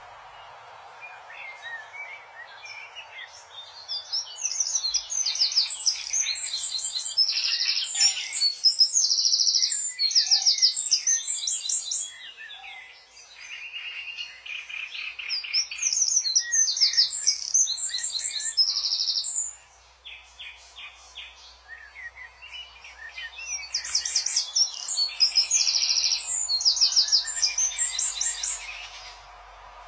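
A songbird singing in three long bouts of varied high chirps and rapid trills, with short pauses between the bouts.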